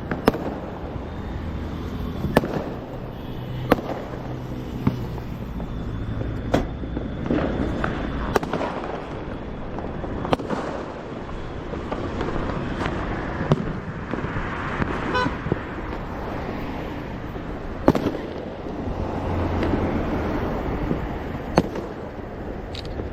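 Firecrackers going off in about a dozen sharp, irregularly spaced bangs over steady road and traffic noise.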